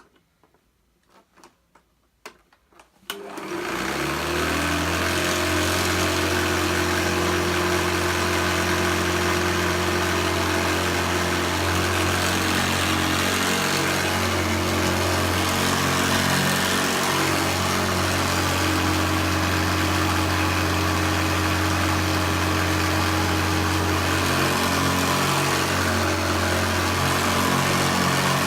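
Hoover Senior Ranger U4002 upright vacuum cleaner switched on after a few light clicks, its motor starting about three seconds in and then running steadily with a low hum. It sounds a little rattly, which the owner puts down to something loose underneath with the motor.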